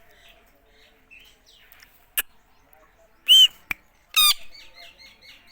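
Indian ringneck parakeet calling: soft short chirps, a loud squawk a little past three seconds in, and a harsh rapid call just after four seconds, followed by a run of quick chirps. Two sharp clicks come in between.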